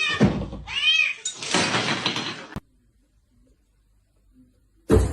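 A kitten meowing twice, high-pitched, followed by about a second of hiss-like noise; the sound then cuts off suddenly.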